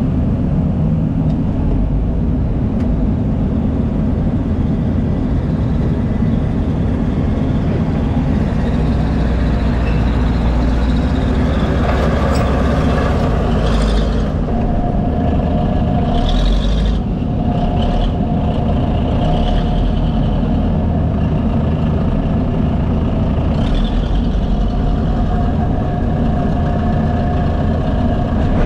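Diesel engines of a Case 450 crawler dozer and a John Deere excavator working, a loud steady low rumble. A few short higher-pitched noises come in about halfway through.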